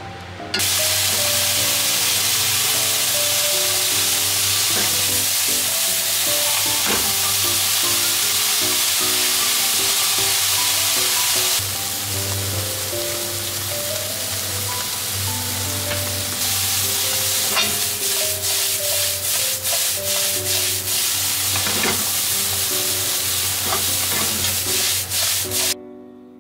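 Bean sprouts and tofu stir-frying in a nonstick frying pan: a loud, steady sizzle starts abruptly about half a second in. In the second half the food is stirred and tossed in the pan with quick repeated strokes, and the sizzle cuts off near the end, leaving soft background music.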